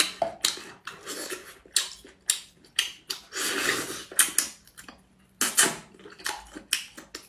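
Spicy crayfish tails being crunched and chewed close to the microphone, eaten whole one per mouthful: a quick run of sharp, crackling crunches, with a longer, noisier chewing stretch about three and a half seconds in.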